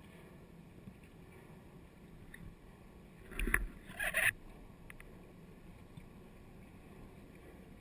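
Scuba diver's exhaled bubbles rushing up past the camera housing in two short bursts about three and a half seconds in, over a low steady underwater hum.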